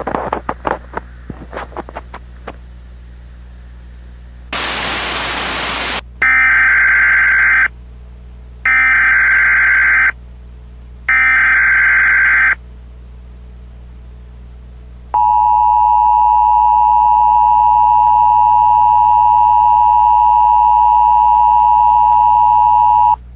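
Emergency Alert System tone sequence. It opens with a couple of seconds of crackling clicks and a short burst of static. Then come three harsh SAME digital header bursts, evenly spaced. Last, the steady two-tone EAS attention signal holds for about eight seconds and cuts off.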